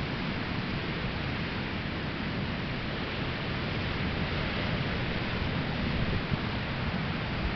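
Atlantic Ocean surf washing onto a sandy beach: a soft, steady hiss of breaking waves, swelling slightly about two-thirds of the way in.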